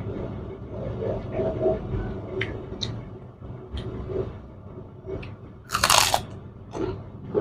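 Close-up chewing with a few small mouth clicks, then a loud crisp crunch about six seconds in and a smaller one just after, from biting into a kerupuk cracker.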